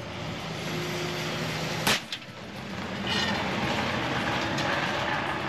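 Loaded tanker rig running past with its engine note rising as it nears, then one loud, sharp bang about two seconds in as both right-side X One trailer tires are blown out by explosive charges. After the bang, a steady rushing noise as the trailer rolls on the blown, flat tires.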